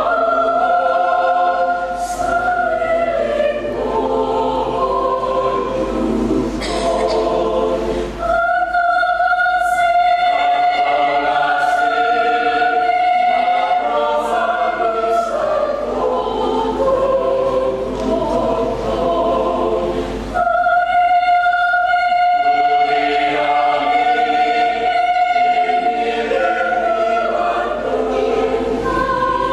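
Mixed church choir singing a hymn in parts, twice holding a long sustained chord for several seconds.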